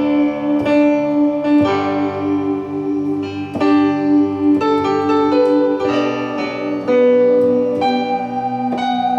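Yamaha Motif XF8 synthesizer workstation played with a piano-like keyboard voice: held chords that change about every second or so, each new chord struck over the ringing of the last.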